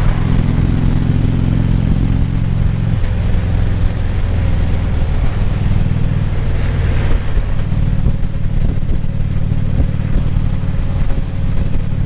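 Harley-Davidson Ultra Classic Limited's V-twin engine running as the motorcycle is ridden along a road, with wind and road noise; the engine note shifts in pitch about three seconds in.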